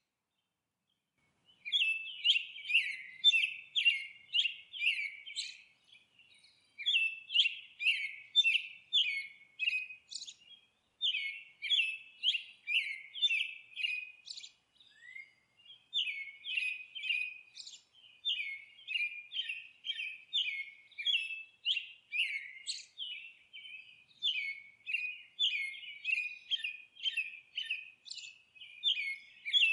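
A bird chirping: runs of short, sharp chirps, about two a second, starting about a second and a half in and broken by a few brief pauses.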